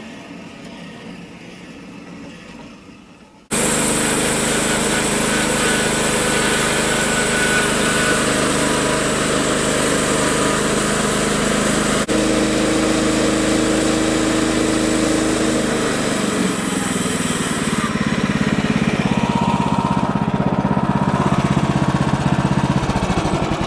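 Woodland Mills HM126 portable bandsaw mill running, its gas engine driving the band blade through a black walnut round. Quieter at first, then suddenly much louder after about three and a half seconds; the engine note drops about two-thirds of the way through as the blade works into the hard centre of the wood.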